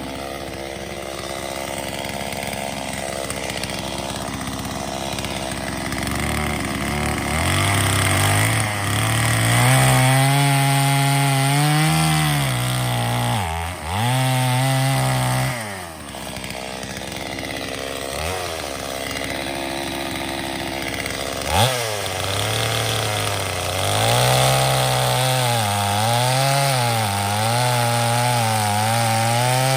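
Two-stroke chainsaw running: idling low at first, then revved up about seven seconds in and worked in the wood, its engine speed dropping sharply twice near the middle and wavering up and down under load near the end.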